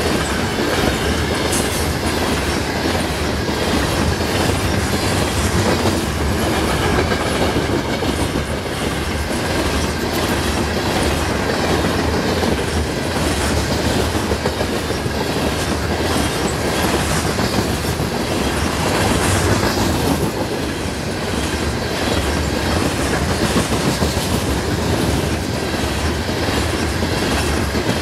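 Loaded potash covered hopper cars of a long freight train rolling past: a steady rumble and rattle of steel wheels on rail, with clicks as the wheels cross rail joints.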